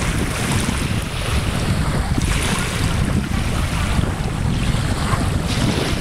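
Wind buffeting the microphone over the hiss of small lake waves, the hiss swelling briefly a couple of times.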